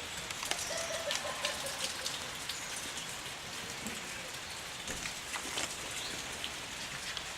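Steady patter of rain, with many individual drops ticking close by.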